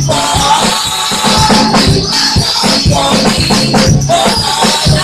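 Live gospel praise music played loud: women singing into microphones over keyboard, with a steady percussion beat and a shaker-like rattle.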